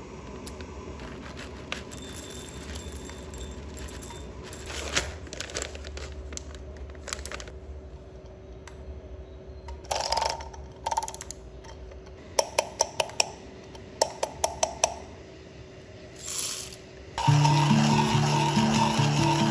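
Paper coffee bag crinkling, then whole coffee beans rattling as they are poured into a Comandante C40 hand grinder, followed by a quick run of about a dozen sharp clicks. Background music comes in near the end.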